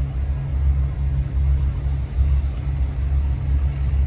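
Low, steady rumble of a motor vehicle engine running, swelling and dipping slightly.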